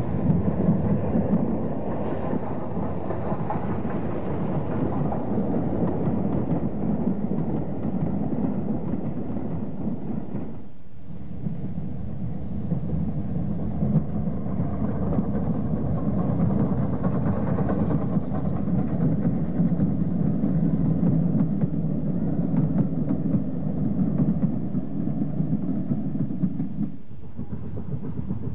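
Steam locomotives running with passenger trains: a continuous rush of exhaust and rolling wheel noise. It breaks off briefly about eleven seconds in and again near the end, where the sound changes to another passing train.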